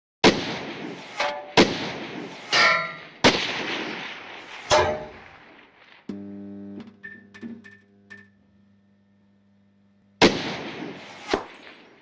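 Intro sound effects: four loud, sharp cinematic hits, each ringing out, then a steady low electronic hum with a few short high beeps, and another loud hit with a smaller one after it near the end.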